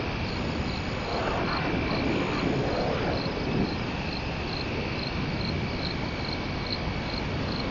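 Crickets and other night insects chirping: a steady high trill with a regular chirp repeating about twice a second, over a low background hiss.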